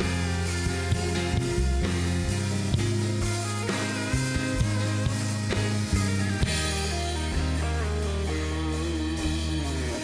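Worship band playing an instrumental passage between sung lines: electric guitar, sustained keys and bass over a steady drum-kit beat.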